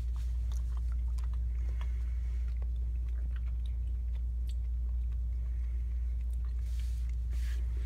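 A child chewing Yowie chocolate, with faint small clicks from the mouth, over a steady low hum.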